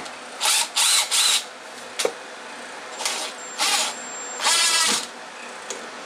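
Cordless drill driving screws into a pine shelf frame: several short bursts of the motor running, three in quick succession at the start and three more later, the last and longest near the five-second mark. A single sharp click about two seconds in.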